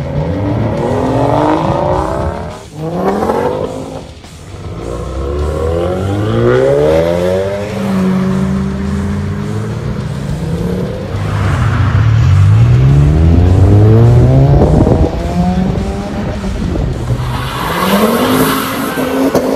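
Modified cars accelerating hard away one after another, each engine climbing in pitch, dropping at a gear change and climbing again. Loudest about two-thirds of the way through.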